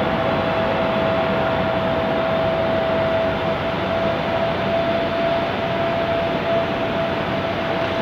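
Steady, even hiss and rumble with one constant whining tone running through it, like machinery or a fan.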